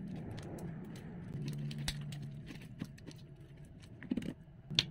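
A sticky slime mixture being stirred and scraped in a plastic bowl, making many small wet clicks and pops. Two louder clicks come near the end as the thickened lump is pulled up out of the bowl.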